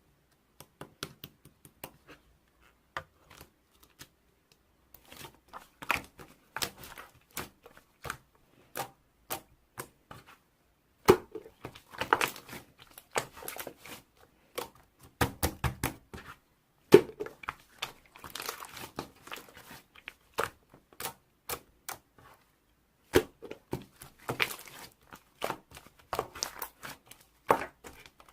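Slime being squished and stretched by hand: irregular sharp clicks, pops and crackles, in busier clusters with short gaps between them.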